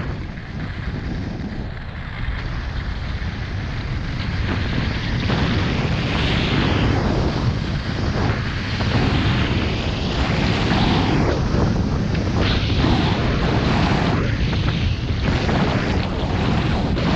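Wind buffeting a GoPro's microphone on a run down a groomed ski slope, mixed with the hiss of the edges sliding and carving over the snow. It grows louder over the first few seconds as speed builds, then swishes with each turn every second or two.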